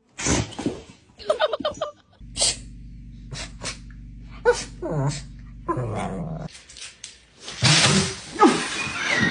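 Dogs sneezing: many short, sharp sneezes across several spliced clips, thickest near the end.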